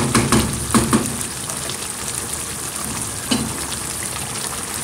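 Chicken and lauki (bottle gourd) curry sizzling in a frying pan on the stove, with a few sharp knocks in the first second and one more a little past three seconds.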